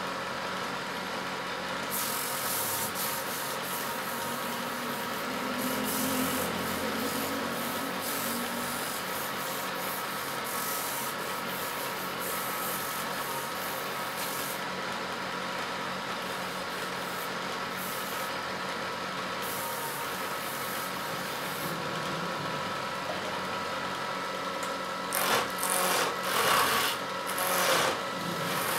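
Wood lathe running with a steady hum while a hand-held turning tool scrapes and cuts a spinning wooden spindle, with shavings coming off. Near the end come several short, louder cutting strokes.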